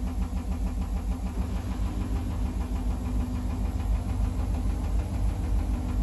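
Samsung Ecobubble Digital Inverter 8 kg front-loading washing machine spinning its drum fast: a steady motor hum with a rapid, even pulsing. This is the spin that follows draining the wash water, before the machine fills again for the rinse.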